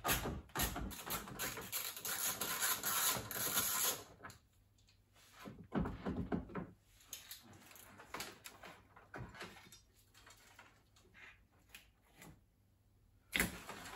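Hand work at a bolt held in a plastic nut on a car's plastic bumper trim: dense clicking and rattling for about four seconds, then scattered clicks and knocks.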